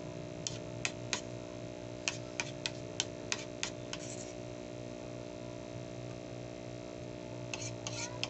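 Metal spoon clinking and scraping against a ceramic plate while scooping rice: a run of about ten sharp clinks in the first four seconds, a pause, then a few more near the end, over a steady low hum.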